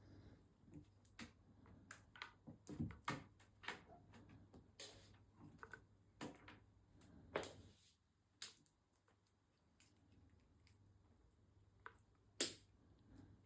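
Irregular light taps and clicks, with a sharper knock about seven seconds in and another near the end, over a faint low hum.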